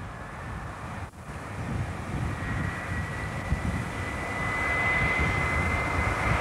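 InterCity 125 HST Class 43 power car approaching, its engine and train rumble growing louder. A steady high whine, the turbocharger whistle of its Paxman Valenta engine, comes in about halfway through.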